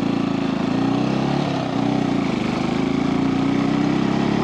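Brixton Felsberg 250's single-cylinder engine running as the motorcycle rides off at low speed, its pitch wavering slightly, with a brief dip about a second and a half in.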